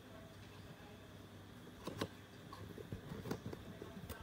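Faint room tone with a sharp click about two seconds in and another near the end, and soft irregular taps in between.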